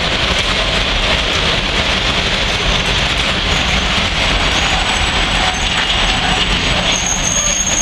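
Open-top freight wagons of a goods train rolling past close by: a loud, steady rolling noise of steel wheels on the rails.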